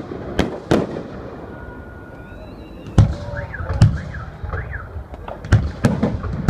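Fireworks display: shells bursting with sharp bangs at irregular intervals, several in quick succession, with a lull of a couple of seconds between the early and later bursts.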